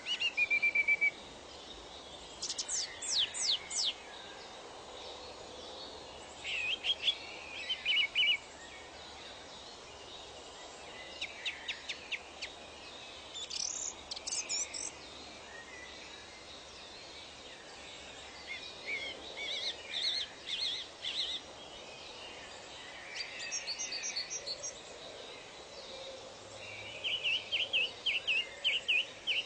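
Birds singing in short, rapid chirping and trilling phrases every couple of seconds, over a steady background hiss of ambience.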